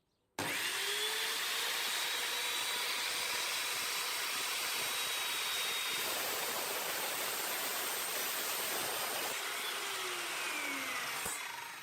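Evolution R210cms mitre saw's 1200 W motor spinning up with a rising whine and cutting through a piece of nailed pallet wood, the sound changing partway through. It then spins down with a falling whine.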